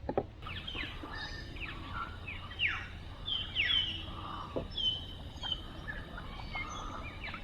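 Birds calling: a chorus of short chirps and whistles, many sliding down in pitch, overlapping one another.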